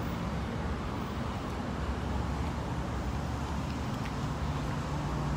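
Steady low outdoor rumble of road traffic, with wind fluttering on the phone's microphone.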